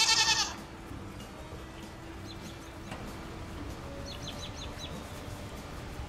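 A goat bleats once, a short quavering cry right at the start, the loudest sound here. Then faint high chirps come twice, about halfway through and again near the end.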